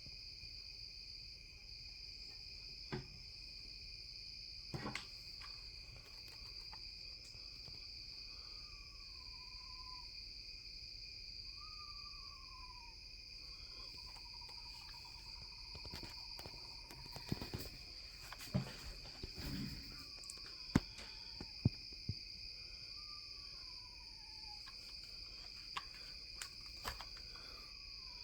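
An owl calling at night: about six short wavering calls that slide downward in pitch and one steady trill of about two seconds near the middle, over a constant high insect chorus. A cluster of sharp clicks and knocks comes near the middle.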